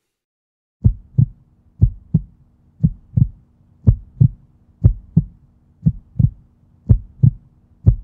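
Rhythmic pairs of low thumps, one pair about every second, like a heartbeat, over a faint steady low hum, starting about a second in.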